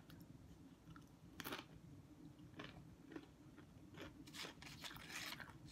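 Faint close-up chewing and crunching of food in the mouth: a few separate crunches, then a quicker run of crunching about four seconds in.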